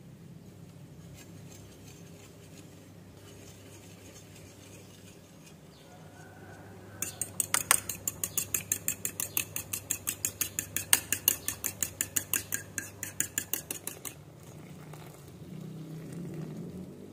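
Metal fork beating an egg in a small ceramic bowl: a quick run of clinks as the tines strike the bowl, about six a second, starting about seven seconds in and stopping about seven seconds later.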